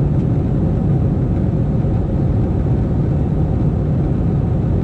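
Steady low rumble of a jet airliner's engines and rushing air, heard from inside the passenger cabin.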